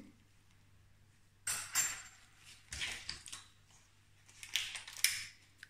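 A metal teaspoon clinking and scraping against a stainless steel saucepan, three short clatters a second or so apart, the first with a bright metallic ring.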